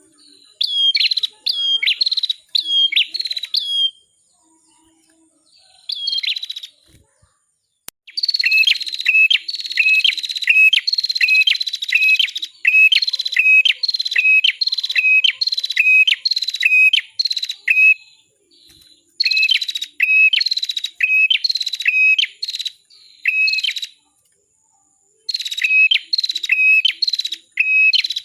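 Red-headed prenjak (ciblek kepala merah) singing: series of short, sharp chirps repeated about twice a second, each a downward-sweeping whistle ending in a lower hooked note, with a few brief pauses between series.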